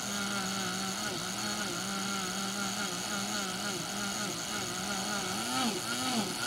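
Countertop blender running, pureeing tomato, vegetables and oil into gazpacho: a steady motor hum whose pitch starts to waver up and down near the end as the load in the jar shifts.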